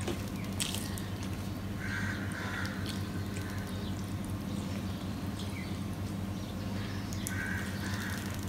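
Hand-eating sounds: fingers mixing and squishing rice on a steel plate, with small clicks and mouth sounds, over a steady low hum. Twice, about five seconds apart, a short high call sounds.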